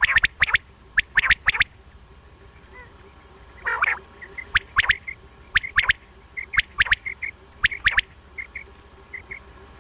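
Male common quail (batair) calling: sharp, clipped notes in quick groups of two to four, repeated throughout. One harsher, fuller call comes about four seconds in, and soft paired chirps fall between the groups.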